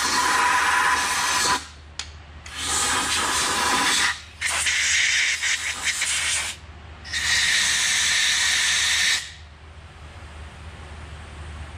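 Compressed-air blow gun hissing in four blasts of one to two seconds each, the last stopping about nine seconds in, blowing gasket scrapings and debris out of a diesel engine's thermostat housing.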